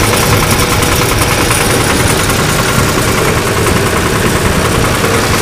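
1974 Long 350 diesel tractor engine running steadily with its diesel clatter.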